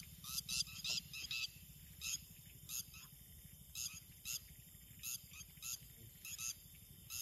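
Night birds calling: short, sharp, high notes repeated irregularly, some single and some in quick runs of two or three, over a low steady hum.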